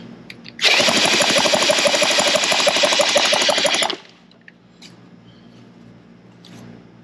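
Small gasoline engine chugging in rapid, even strokes for about three seconds, starting about half a second in and stopping abruptly.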